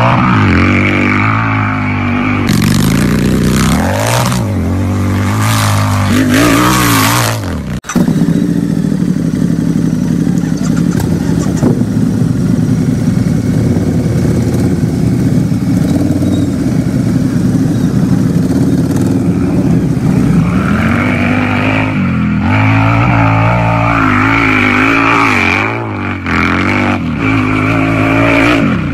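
Harley-Davidson motorcycle's V-twin engine idling and being revved, the pitch rising and falling with each blip of the throttle. It settles into a steady idle in the middle and is revved again near the end.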